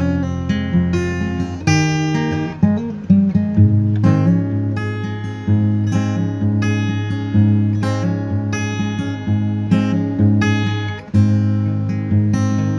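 Background music: acoustic guitar playing plucked and strummed notes at a steady pace.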